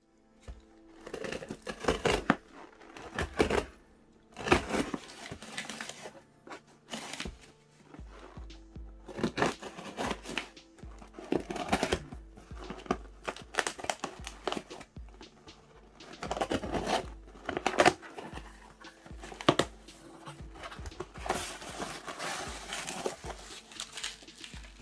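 Background music with plastic and paper packaging being crinkled and torn in irregular bursts as a parcel is unboxed.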